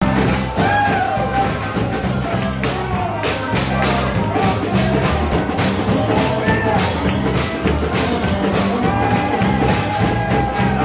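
Live church band playing an upbeat gospel song: drum kit with cymbals and a tambourine keeping a steady beat, guitar, bass and piano, with voices singing the melody.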